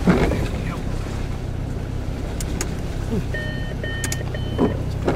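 A 4x4's engine runs steadily at low revs while it drives slowly over a rough, rutted track, heard from inside the cabin, with short knocks near the start and again near the end. Three short electronic beeps sound in the middle.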